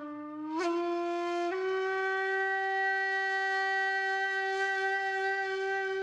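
Background music: a single wind instrument playing slow sustained notes, stepping up in pitch twice and then holding one long note.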